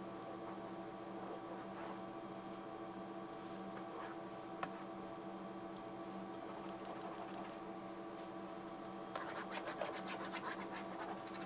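Pen stylus scratching in short strokes across the surface of a Quantel-branded Wacom graphics tablet, heard in a burst near the end, over a steady electrical hum. A single click sounds about four and a half seconds in.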